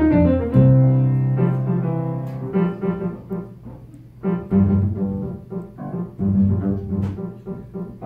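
Live instrumental jazz on piano and bass. The piano holds ringing chords, and about four and a half seconds in a plucked bass line comes to the fore while the piano plays more sparsely.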